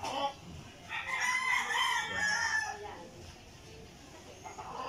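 A rooster crowing: one long crow starting about a second in and lasting about two seconds, then another crow beginning near the end.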